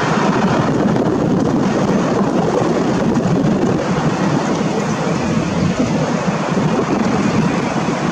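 Steady, even rumble of a Boeing 777-300ER's GE90 jet engines as the airliner rolls along the runway after landing.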